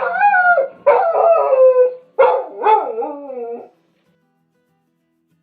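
A dog howling in four wavering, pitched calls one after another, the last sliding down low, then a pause of about a second and a half.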